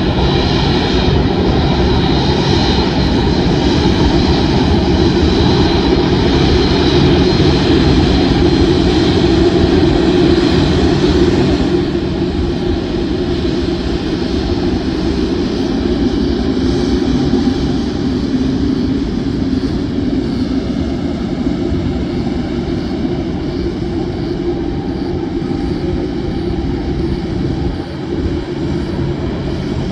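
Boeing 747's four jet engines running at taxi power: a steady rumble with a high whine over it, a little quieter from about twelve seconds in.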